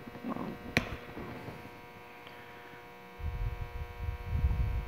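Handling noise as a squeeze bottle of air-tool oil is opened and oil is put into a pneumatic nibbler's air inlet: a sharp click about a second in, then a low rubbing rumble over the last second and a half. A steady electrical hum runs underneath.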